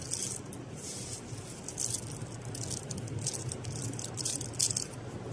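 Dried licorice-root slices rattling and crackling as they are scooped up and shifted in a hand, in short irregular bursts, their brittleness a sign the batch is fully dried. A steady low hum runs underneath.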